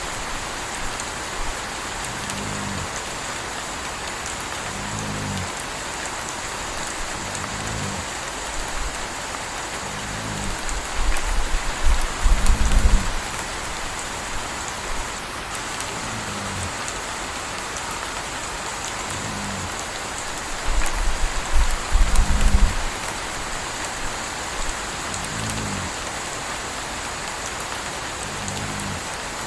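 Steady rain falling, with a puppy snoring in a regular rhythm, about one low snore every two and a half to three seconds. Twice, around the middle and about three-quarters through, a louder low rumble comes in for a second or two.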